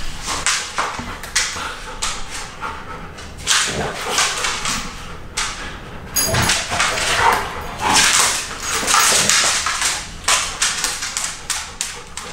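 A Belgian Malinois and an Alaskan Malamute play-fighting, vocalising in uneven bursts, loudest in the middle, with scuffling and sharp clicks scattered throughout.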